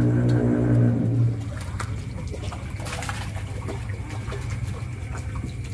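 Background music cuts off about a second in. Then a hooked catfish thrashes and splashes at the pond surface as it is reeled in, with a louder splash about three seconds in.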